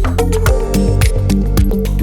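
Background music: electronic music with a steady beat and a heavy bass.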